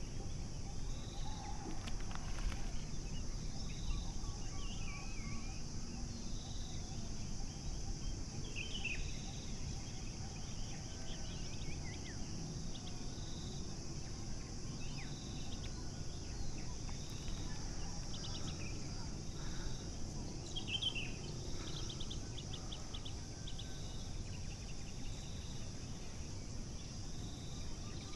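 Small birds calling with scattered short chirps and a few quick trills, over a steady high insect drone and a low rumble of wind on the microphone.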